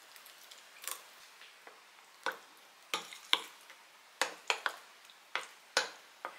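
Metal spoon stirring thick gram-flour batter in a glass bowl as water is worked in: about ten short clicks, spaced irregularly.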